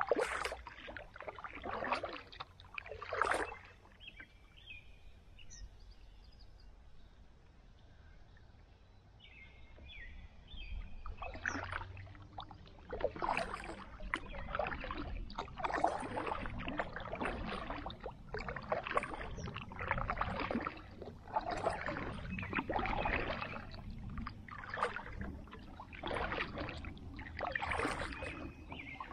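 Kayak paddle strokes through calm water: a run of splashy swishes about one a second as the blades dip and pull. After a few strokes there is a pause of several seconds while the kayak glides, then the steady strokes resume.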